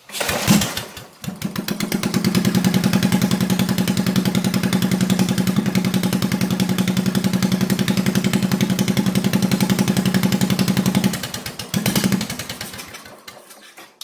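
Small single-cylinder mini bike engine fed by a 32mm Mikuni carburetor, catching and running steadily at a fast idle. About eleven seconds in it falters, picks up briefly and then dies out near the end: it is starving for fuel.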